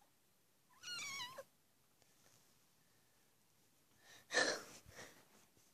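A cat meowing once, a short wavering call about a second in. A louder brief noisy burst follows about four and a half seconds in.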